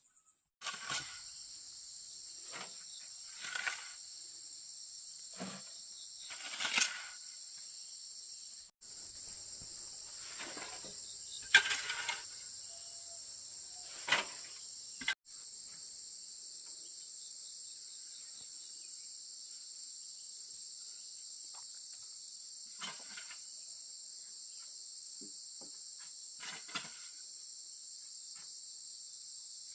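Insects chirring steadily in a constant high-pitched drone, with scattered short knocks and scrapes of work, the loudest about twelve seconds in.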